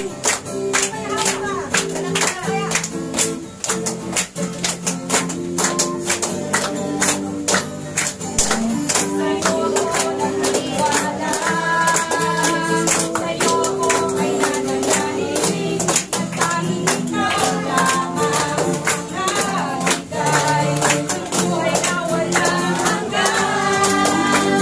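Praise and worship music with group singing, and a tambourine and hand claps keeping a steady beat.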